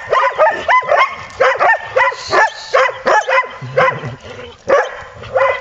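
Collie barking over and over in short, high barks, about two or three a second, with a brief gap a little past the middle.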